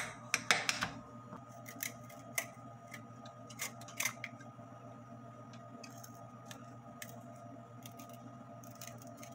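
A vegetable peeler scraping the hard skin off pumpkin pieces in short, sparse strokes and clicks, after a few knocks of a knife on a glass cutting board in the first second. A faint steady hum runs underneath.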